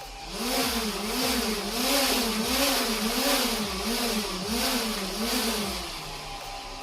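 Small quadcopter drone's propellers humming, the pitch rising and falling about eight times at an even pace with a pulsing hiss, fading out about six seconds in.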